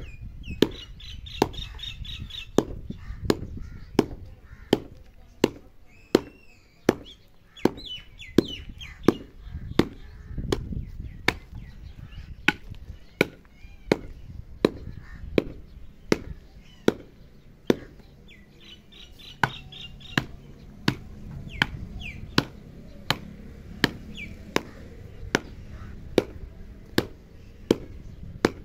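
A wooden stick pounding a heap of dry clay clods on bare ground, breaking them up, in steady sharp strikes about three every two seconds.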